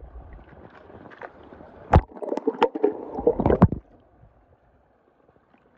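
Swimming-pool water splashing and sloshing as a small toy train is dunked into it, with one sharp splash about two seconds in and a run of quick splashes until nearly four seconds. After that only faint lapping remains.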